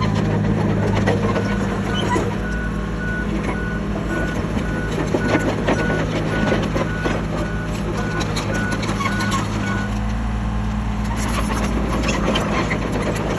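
Komatsu D31PX bulldozer's diesel engine running steadily with its backup alarm beeping about twice a second, the beeping stopping about three-quarters of the way through. Scattered clanks and rattles sound over the engine.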